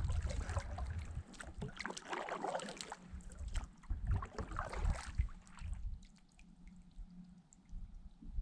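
Water splashing and sloshing around a kayak being paddled through shallow water, irregular for about five seconds, then dying down to faint drips and ticks.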